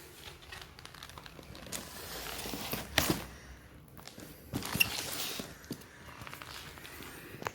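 Fireworks packaging being handled: rustling and scattered clicks, with louder knocks about three seconds and five seconds in.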